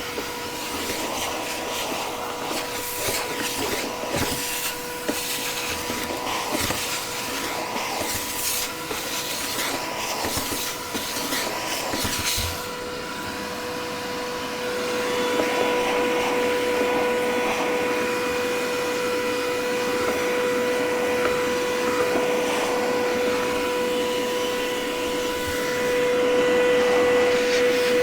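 Vacuum cleaner running with a steady motor whine, crackling and rattling as it sucks up debris for the first twelve seconds or so, then running steadier and a little louder.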